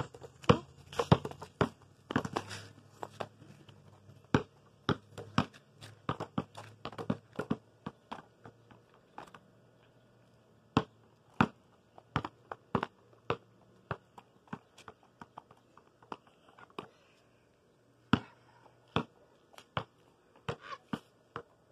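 Basketball bouncing on a concrete driveway: a string of short, sharp thumps at uneven spacing, crowded together in the first few seconds and near the end, and about one a second in between.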